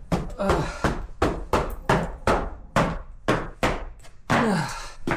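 Footsteps crunching through deep snow in boots at a steady walking pace, about two to three steps a second.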